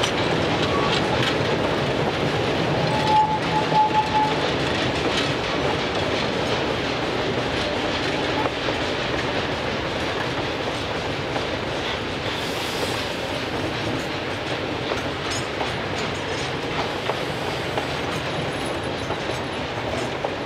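Durango and Silverton narrow-gauge train rolling along the track, wheels clicking over the rail joints with a steady rumble. A brief high squeal comes about three seconds in.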